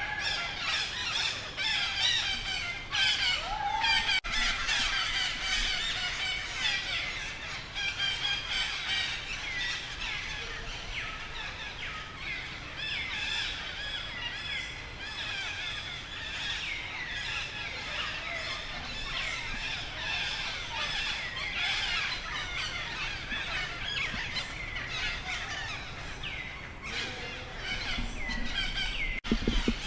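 Monkeys squealing and screeching, many high-pitched calls overlapping continuously, typical of a frightened baby monkey and troop.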